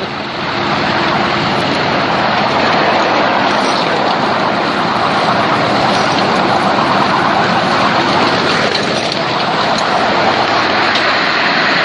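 A 7¼-inch gauge miniature train running along its track, heard from a passenger car just above the wheels: a steady, even rumble of wheels on rail.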